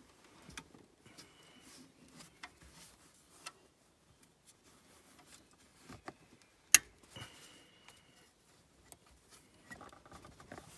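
Open-ended wrench working an alternator bolt in an engine bay: scattered light metallic clicks and clinks of the tool against the bolt and brackets, with one sharp click about two-thirds of the way through as the loudest.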